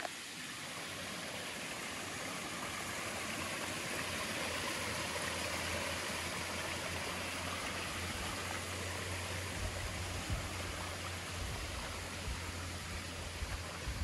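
Stream water running steadily, with a low rumble underneath.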